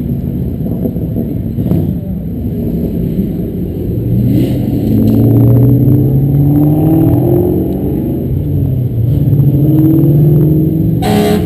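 A car engine accelerating away, its pitch climbing, dropping at a shift, then climbing again. A brief sharp burst near the end.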